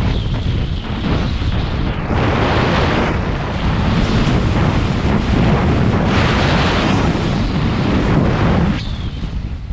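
Heavy wind buffeting the microphone while skiing, mixed with skis hissing and scraping over snow. It swells twice and eases off near the end.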